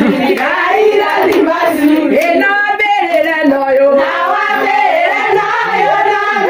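A group of people singing together, with a few hand claps in the first seconds.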